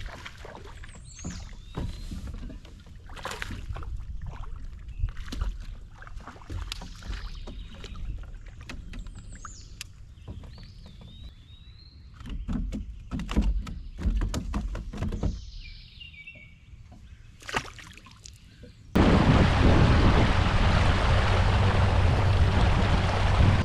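Scattered knocks and thuds on a fishing boat over a low rumble, with a few birds chirping. Near the end a loud, steady rush of noise cuts in suddenly.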